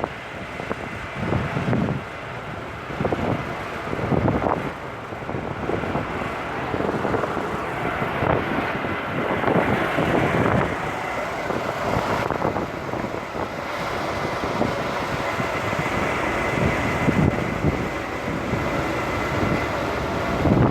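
Wind buffeting the microphone in irregular gusts over a steady rushing hiss.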